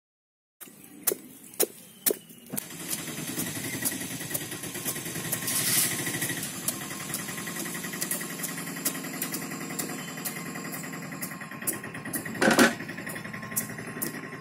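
Sharp knife strikes paring the rind of a raw jackfruit, about two a second. About two and a half seconds in, an engine starts running steadily underneath them. One louder knock comes near the end.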